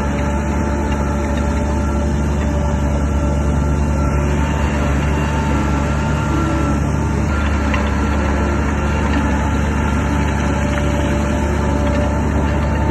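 Heavy earthmoving machine's diesel engine running steadily, with a slight change in tone about seven seconds in.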